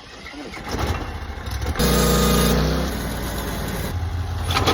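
Sawmill engine speeding up and running loud about two seconds in, then settling to steady running.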